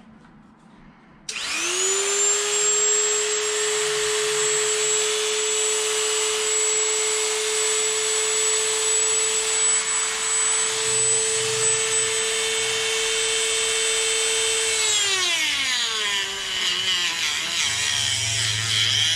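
Dremel rotary tool switched on about a second in, spinning up to a steady high whine, trimming a plastic chassis piece. Near the end its pitch falls and wavers as it slows, with rough rubbing noise.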